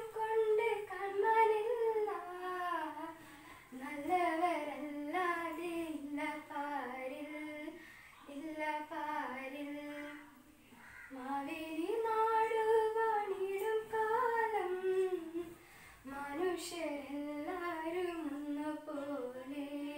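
A child singing a melodic song solo and unaccompanied, in phrases of a few seconds with short pauses for breath between them.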